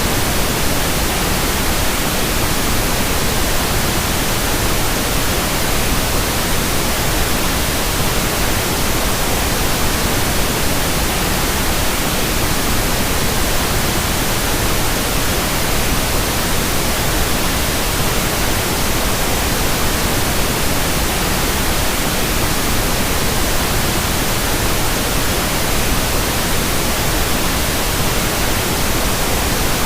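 Steady tinnitus-masking noise: an even hiss spread evenly from deep to very high pitches, without change, pulse or tone.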